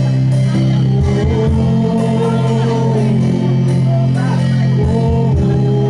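Live worship music with singing over amplified band accompaniment, with a steady beat and a strong sustained bass.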